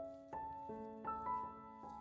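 Background piano music, with a new note or chord struck every third of a second or so.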